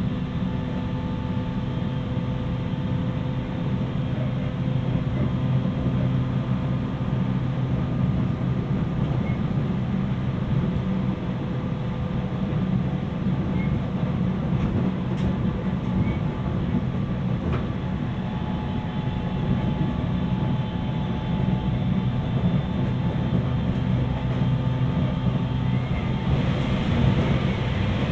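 Interior running sound of a JR 719 series AC electric multiple unit cruising steadily: a constant hum with several held tones over rail and wheel noise. The car has a jet-like whine, which the uploader suspects may be abnormal but is unsure whether it is normal for the 719 series.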